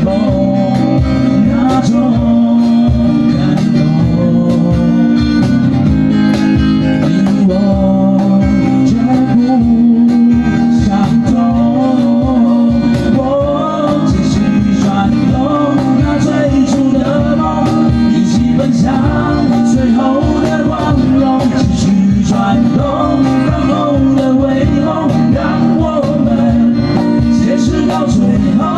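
Live acoustic band playing a pop-rock song: two acoustic guitars strummed over a steady cajon beat, with male singing.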